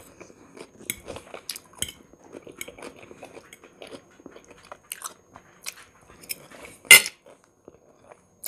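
Eating sounds: a metal fork clicking and scraping on a ceramic plate while twirling spaghetti, with chewing and biting, and one loud sharp sound about seven seconds in.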